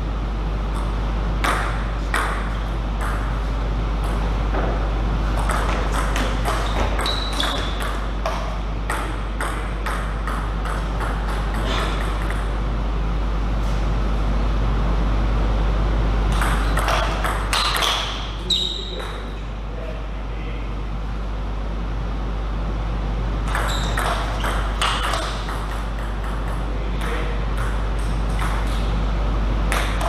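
Table tennis rallies: the ball clicking off the rackets and bouncing on the table in quick series, with pauses between points. A steady low hum runs underneath, and a few short high squeaks come during the rallies.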